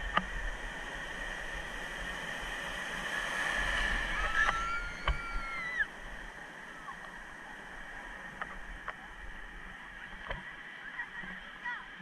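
Shallow surf washing and churning around the camera, swelling to its loudest about four seconds in, then dropping to quieter lapping water. A few small knocks are heard, and a brief high-pitched voice call comes near the middle.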